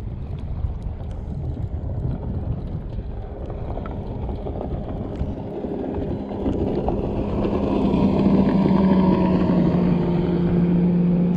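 A motorboat engine speeding past on open water. Its steady engine note grows louder from about six seconds in and holds to the end, over wind noise on the microphone.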